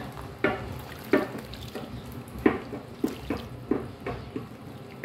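Wooden spoon stirring runny cake batter in a plastic basin as milk is worked in: a run of short wet slaps and squelches, about two a second.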